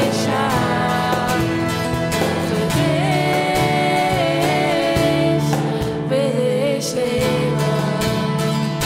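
Live acoustic worship band: two acoustic guitars strumming and a cajón keeping the beat under a man's lead vocal singing a German praise song. The singing drops out near the end, leaving the guitars and cajón.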